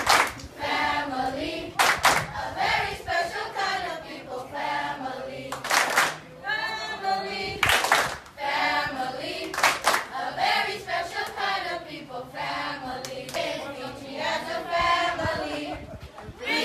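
A children's choir singing together, with sharp hand claps in quick pairs every couple of seconds during the first ten seconds.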